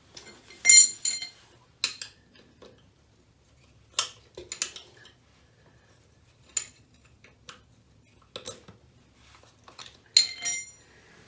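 Metal clinks and knocks of hand tools and hardware being worked. A sharp ringing metallic clink comes about a second in and another near the end, with duller single taps scattered between.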